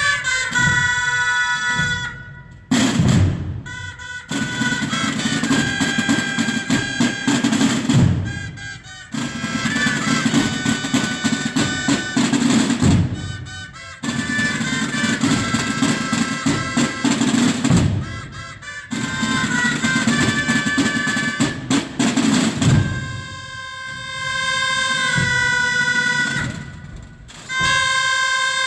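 Holy Week brotherhood band of drums and bugles playing a processional march: snare and bass drums with rolls under held bugle notes, in phrases broken by brief pauses. Near the end the drumming drops back and the bugle notes carry on.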